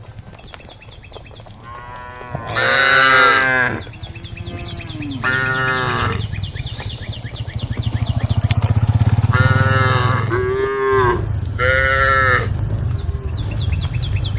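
Cows mooing, several long calls one after another, each arching up and then down in pitch.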